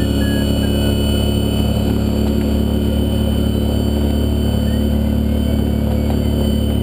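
Swift Lite-E motorglider's propeller and motor running steadily at full power, a constant drone with several steady tones, mixed with rushing wind, as it climbs out low over the ground.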